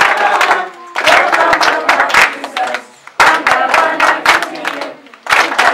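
A group of women and children singing a welcome song together, clapping their hands along in time. The singing comes in short phrases with brief breaks between them.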